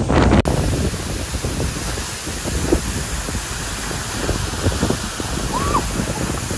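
Steady rushing noise, with an abrupt cut about half a second in and one short chirp near the end.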